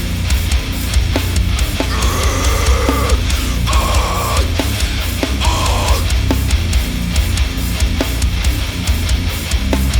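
Heavy metal music: distorted guitars over a heavy bass and steadily struck drums. Three short held high tones come and go in the middle.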